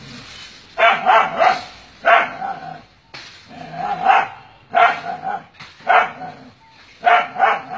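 Dog barking repeatedly at a cobra reared up in front of its kennel: a string of about ten sharp barks, some in quick pairs, with short gaps between.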